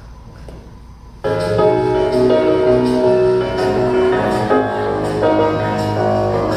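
Loud instrumental background music cuts in suddenly about a second in, with sustained notes and a regular beat.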